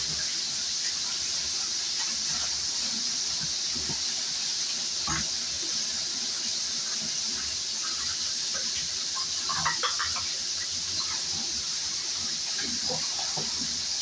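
Red snapper frying in a pan of oil with a steady sizzle, with a few light clinks of kitchenware about five seconds in and again near ten seconds.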